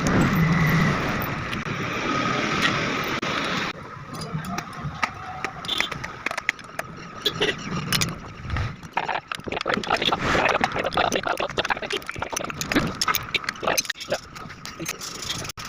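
Reassembly of a scooter with hand tools: a steady noise for the first few seconds that cuts off suddenly, then a run of irregular metallic clicks and knocks.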